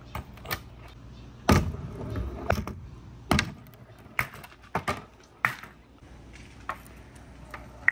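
Large orange balls knocking into a wet green plastic channel and against each other, with a short rumble as they roll down. There is a series of sharp knocks, the loudest about a second and a half in.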